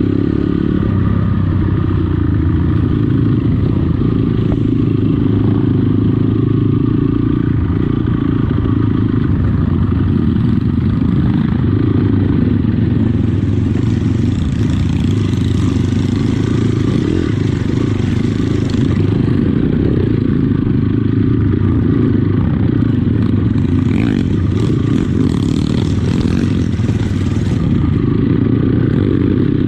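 Trail motorcycle engine running steadily, without big revs. A hiss of noise rises over it twice, for several seconds in the middle and again near the end.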